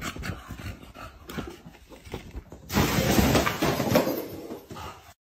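A French bulldog scuffling about with soft knocks and snuffles, then about three seconds in a loud crash and rustle of tissue paper and cardboard gift boxes as it tumbles into them. The rustle fades out after about a second and a half.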